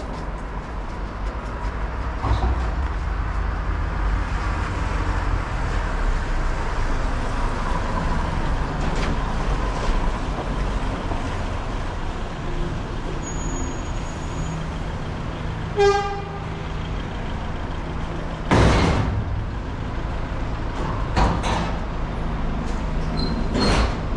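Street traffic: vehicles running past with a steady low engine rumble. A short horn toot sounds about sixteen seconds in, followed a couple of seconds later by a loud, brief burst of noise.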